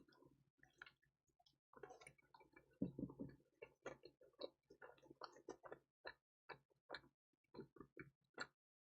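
Close-miked chewing of crispy pizza: a run of short, faint crunches and mouth clicks, busy at first and then settling into a steady rhythm of about two a second.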